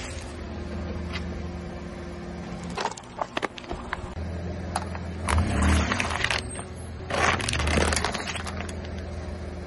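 A slowly rolling car's tyre crushing small objects over the low hum of its idling engine: several sharp cracks a few seconds in, then two stretches of crunching and bursting as plastic cups of drink are flattened.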